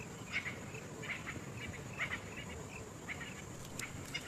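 Birds calling in short, scattered chirps, several a second, over a faint steady background noise.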